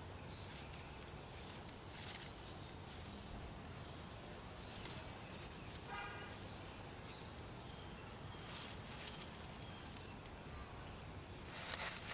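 Dry fallen leaves rustling in short bursts as a cat noses and shifts about in them, the loudest burst near the end, with a brief high chirp about halfway through.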